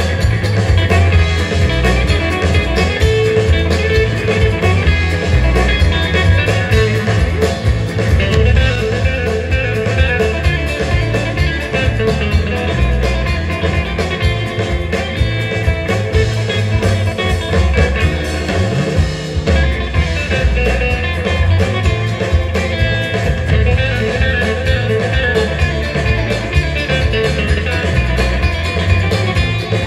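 Live instrumental rautalanka band playing a fast samba-rhythm number: twangy electric lead guitar melody over rhythm guitar, electric bass and drum kit.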